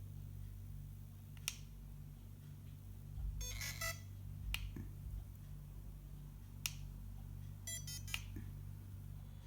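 FeiyuTech Vimble One smartphone gimbal running with a steady low electrical hum that pulses on and off, the extraneous noise made by its stabilising motors. A few sharp clicks and two short bursts of rapid ticking sound over it.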